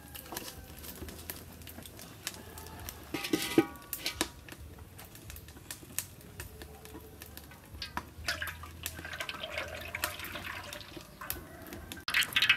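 A wood fire crackling in a clay stove. About three and a half seconds in there is a metal clatter with a short ring as a large wok is set on the stove. From about eight seconds, oil pours from a steel bowl into the wok.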